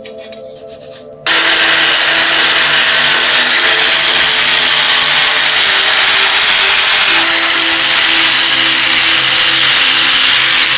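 An electric rotary sander with a disc pad starts up about a second in and runs steadily against a perforated metal panel, grinding the black paint off down to bare metal.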